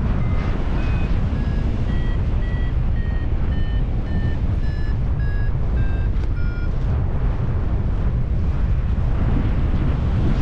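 Paragliding variometer climb tone: a dozen short beeps, a little under two a second, each slightly lower in pitch than the last, stopping about seven seconds in. The falling pitch means the glider is still climbing but the lift is weakening. Heavy wind rumbles on the microphone throughout.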